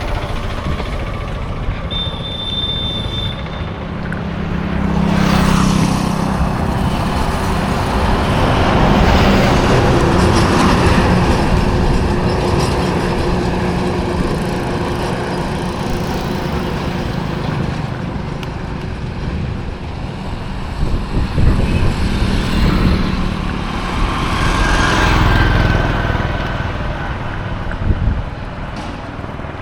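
Road traffic going by: engine and tyre noise from passing vehicles, swelling as vehicles pass about five to eleven seconds in and again near the end, with a short high beep about two seconds in.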